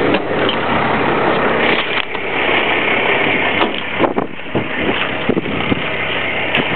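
Cummins diesel engine of a Dodge W250 pickup idling steadily, mixed with wind gusting across the microphone.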